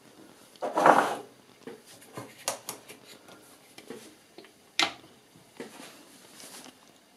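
Handling noises at a kitchen counter: a short, loud rustling noise about a second in, then scattered light clicks and knocks, with one sharp click just before the middle.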